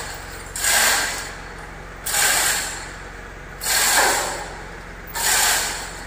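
Hand-operated chain hoist being worked to lift a heavy baler: the hand chain is pulled in strokes, each stroke giving a rattling, clicking burst of chain and ratchet about every second and a half, four times.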